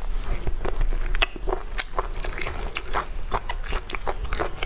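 Close-miked mouth sounds of a person biting and chewing braised meat off the bone: many sharp clicks coming irregularly, several a second.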